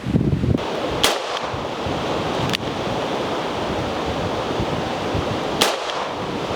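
Strong wind rushing over the microphone, with a few sharp clicks or snaps about a second in, near two and a half seconds and again near the end.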